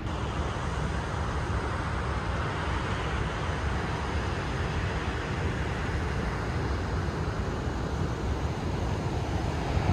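Wind buffeting the microphone, a steady low rumble over a constant rushing hiss.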